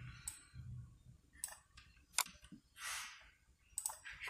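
A few separate, sharp computer keyboard and mouse clicks as lines of code are selected and deleted, with a short soft hiss about three seconds in.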